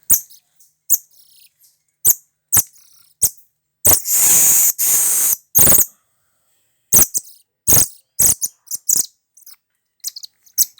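Animal calls: a series of short, sharp, high-pitched chirps at uneven intervals, with one longer, harsher call about four seconds in that lasts over a second.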